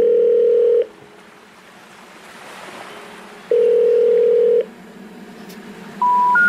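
Telephone call-progress tones: two steady low beeps of about a second each, a few seconds apart, like a ringback tone, then three short beeps stepping up in pitch, the special information tone that signals a call cannot be completed.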